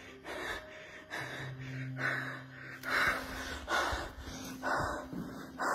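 A frightened man breathing heavily and fast, a string of sharp gasping breaths about one to two a second that grow louder after about two seconds.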